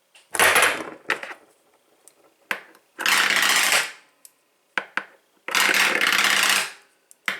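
Master padlocks being spun on a hard surface: three short spins of about a second each that quickly die out, with small knocks between them as the lock falls and is picked up again. The spins keep failing to catch.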